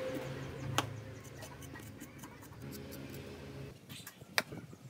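Kitchen knife slicing fresh ginger root on a wooden cutting board: irregular knife taps against the board, the sharpest about a second in and near the end, over a faint low hum.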